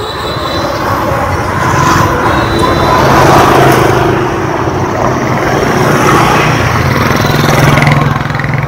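Street traffic dominated by motor scooters passing close by, their engines swelling and fading, loudest about three seconds in and again near the end.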